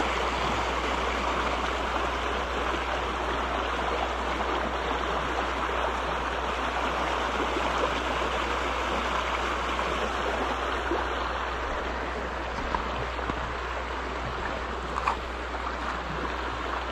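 A small rocky stream's water spilling over rock ledges into a pool, a steady rushing with no change.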